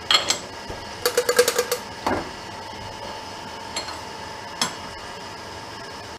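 Metallic clinks and taps from a brake disc and tooling being handled on a lathe chuck: a few clicks, then a quick run of about eight ringing clinks about a second in, a knock, and two single clicks later, over a steady low hum.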